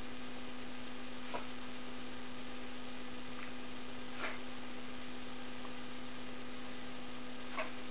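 Steady electrical hum, with three faint short ticks spread through it.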